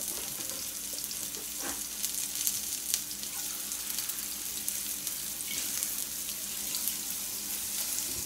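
Shiitake mushroom pieces sautéing in hot oil in a frying pan: a steady sizzle with scattered small pops and crackles.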